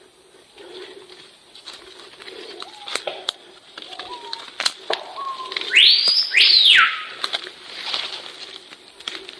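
Unidentified animal calls: a few short soft notes, then two loud whistled calls about half a second apart near the middle, each sweeping sharply up and dropping back down, with scattered sharp clicks between them.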